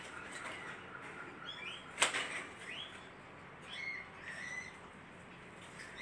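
Budgerigar in its cage giving a few short, rising chirps, with a sharp flap or knock about two seconds in.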